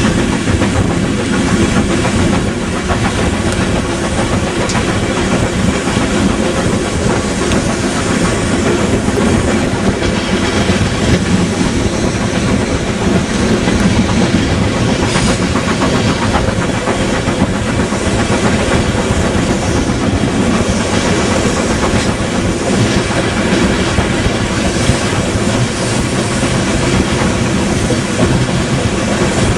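Passenger train running along the track: a steady rumble with the clickety-clack of wheels going over rail joints.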